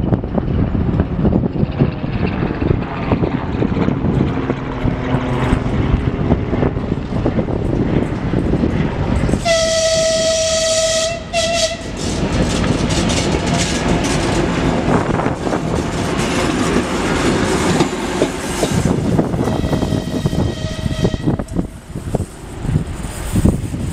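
Two-section 2M62 diesel locomotive running light past, its two-stroke diesel engines throbbing steadily. A loud horn blast of about two seconds sounds about ten seconds in, and a second, fainter blast comes around twenty seconds in.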